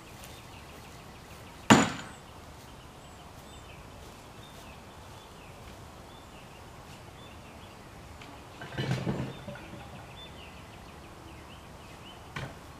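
A single sharp knock a couple of seconds in, a short clatter of knocks around nine seconds, and a faint click near the end, over faint outdoor background with small high chirps. No weed eater is running.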